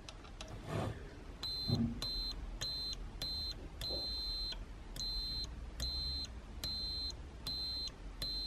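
Digital multimeter's continuity buzzer beeping about ten times in short, high, even-pitched beeps, one of them held longer, as the probes make and break contact on the mixer motor's wiring. Each beep signals a closed circuit between the probes. Two soft knocks from handling the probes come just before the beeping starts.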